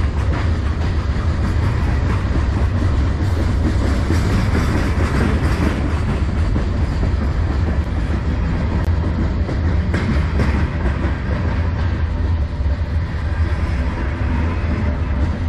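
Freight cars of a manifest train rolling past close by: a steady, deep rumble of steel wheels on the rails.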